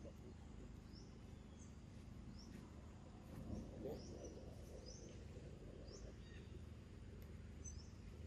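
Faint outdoor ambience with short, high bird chirps repeating roughly once a second, and a brief soft rustle a few seconds in.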